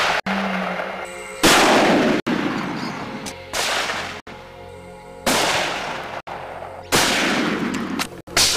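A string of about five gunshots, each a sudden loud crack that fades out over a second or so, spliced one after another with abrupt cuts between them.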